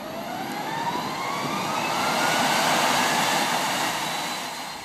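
Aircraft flyby sound effect: an engine roar with a steadily rising whine that swells to a peak and then fades away near the end.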